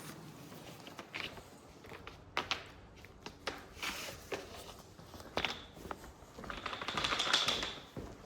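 Scattered light taps and knocks of work being handled, with a longer scraping or rustling noise near the end.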